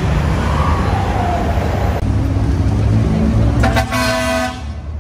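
Heavy diesel trucks rumbling in slow traffic. About three and a half seconds in, a truck horn sounds one blast of about a second.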